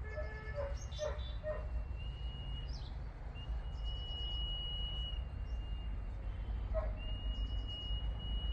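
Common iora whistling: long, level, drawn-out whistles at one steady pitch, each lasting one to two seconds, four of them in a row. Shorter chirps and quick trills come in between, over a steady low rumble.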